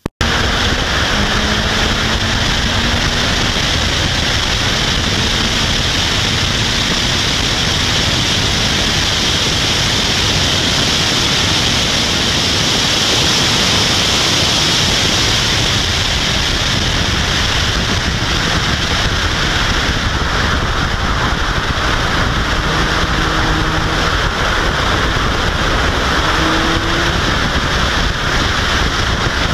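Steady rush of wind buffeting the microphone of an open-cockpit 2012 Caterham R400 at speed, with the car's engine faint underneath. It cuts in abruptly at the start and swells a little midway, at top speed on the straight.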